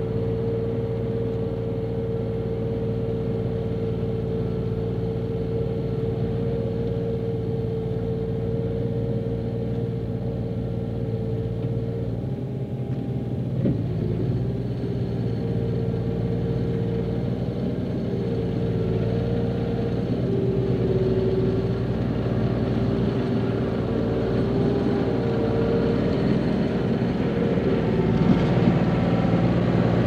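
Bulldozer diesel engine running steadily while clearing topsoil. About twelve seconds in its note changes, with a single knock, and it then wavers up and down and grows a little louder toward the end.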